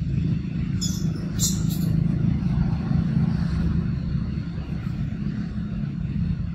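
A steady low rumble, wavering in level, with a few brief crackling rustles about a second in.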